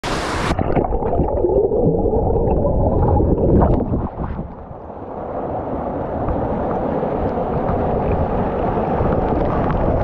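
Waterfall churning into a rock pool, heard from a camera held at and under the water surface: a dull, muffled rush for the first few seconds that dips briefly just before the middle, then comes back somewhat brighter.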